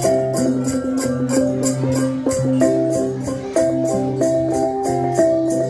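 Central Highlands cồng chiêng gong ensemble playing: hand-held gongs struck in turn, their held, ringing tones overlapping in an interlocking melody over a low steady drone, with a steady high beat about three times a second.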